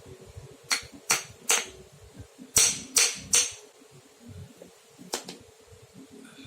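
Hammer striking metal: two quick sets of three ringing blows, the second set louder, then one more blow.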